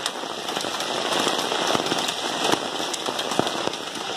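A hailstorm in full fall: hailstones striking hard surfaces in many sharp, irregular clicks over a steady rain hiss.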